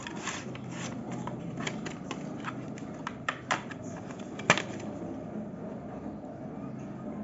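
Packaging being handled while SSDs are unboxed: scattered clicks and rustles, with one sharper click about four and a half seconds in, then only a low steady hum.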